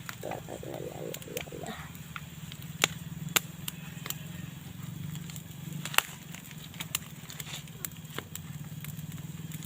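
Wood fire in a makeshift stove crackling, with scattered sharp pops over a steady low hum.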